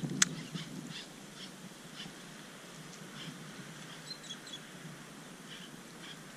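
Faint short bird chirps at scattered moments over a steady low rumble of wind on the microphone, with one sharp click shortly after the start.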